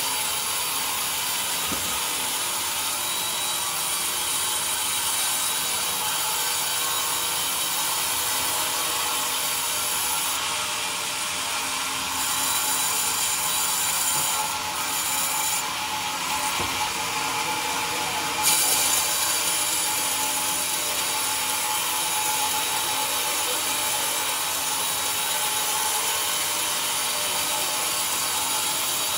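Sawmill band saw running steadily through a large log on the carriage, cutting a slab lengthwise, with a slightly louder, more uneven stretch partway through.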